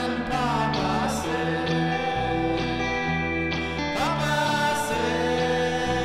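Song: a voice singing over a bass line and guitar.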